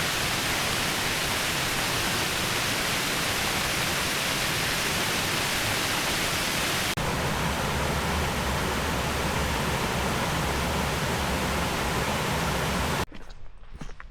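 Indian Branch Falls, a 45-foot plunge waterfall, rushing steadily and loudly. Near the end it cuts off suddenly, leaving quieter footsteps.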